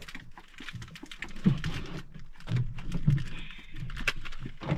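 Irregular small clicks and taps, with a few dull knocks about a second and a half and three seconds in: things being handled.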